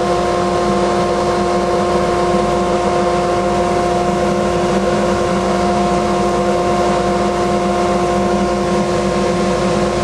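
Homemade two-stage dust collector running steadily, drawing in fine sawdust: a constant motor-and-blower hum with several held tones over a rush of air.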